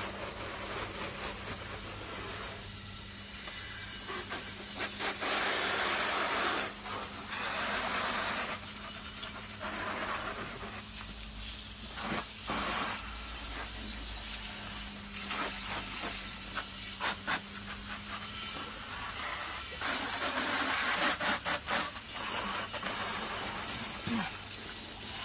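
Garden hose spray nozzle jetting water onto an engine casing to rinse off oven cleaner, coming in several long hissing spells with quieter pauses between.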